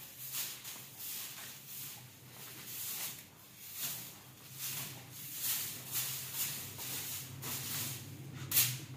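Soft grass broom sweeping a tiled floor: short bristly swishes at about two strokes a second, the loudest stroke near the end.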